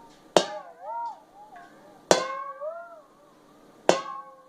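Kitchenware struck three times, about two seconds apart. Each strike sets it ringing with several tones that bend up and down in pitch and die away within about a second.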